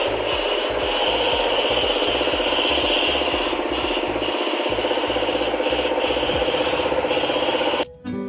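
Continuous rough rubbing or scraping, like sanding or brushing a surface, that stops abruptly near the end.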